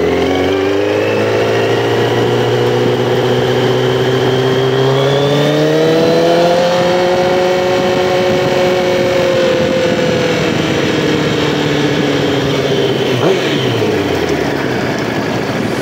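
Motor of a small ride-on vehicle running under way, climbing in pitch for several seconds as it picks up speed, holding, then slowly dropping as it slows near the end, with a high whine rising and falling along with it.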